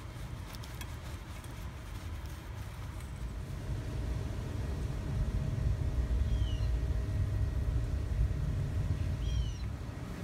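Outdoor background rumble that swells midway, with two short falling bird chirps about six and nine seconds in and a thin steady hum through the second half.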